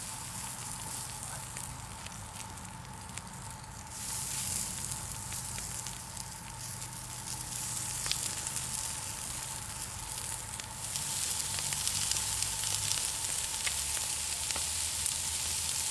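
Homemade sausages brushed with melted mutton fat sizzling as they are laid one after another on a hot greased grill grate over charcoal, with scattered crackles. The sizzle gets louder in steps about four seconds in and again about eleven seconds in as more sausages go on.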